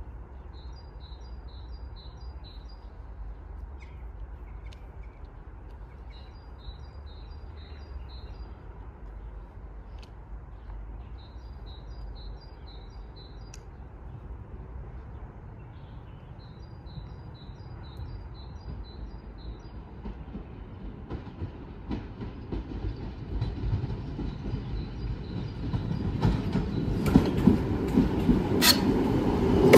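Passenger train hauled by a BDZ class 44 electric locomotive approaching. A low rumble grows steadily louder over the last ten seconds, and the wheels clatter over the rail joints near the end.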